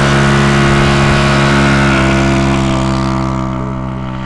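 Propeller engine of a small Cessna-type aircraft running at full throttle with a steady pitch, fading steadily from about three seconds in as the plane moves away on its takeoff run.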